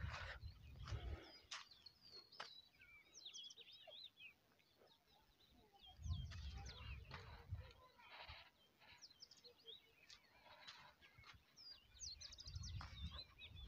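Faint birdsong: small birds chirping and twittering on and off. Wind gusts rumble low on the microphone at the start, about six seconds in, and near the end.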